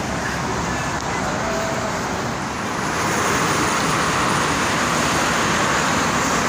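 Steady road traffic noise from passing cars and buses, growing louder about three seconds in.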